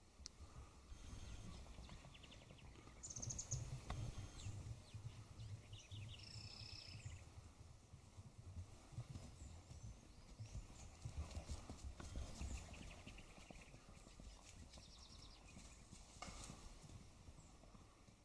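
Distant thunder rumbling low and unevenly, swelling and fading, with birds chirping now and then.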